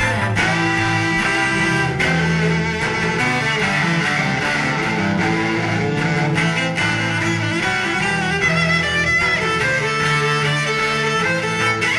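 Background music of long held notes, steady throughout.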